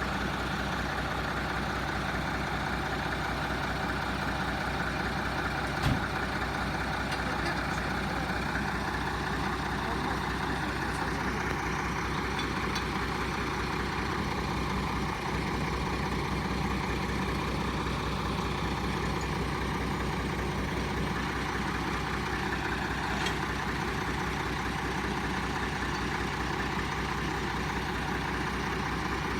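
Heavy truck engine running steadily while hauling a heavy load, with one short click about six seconds in.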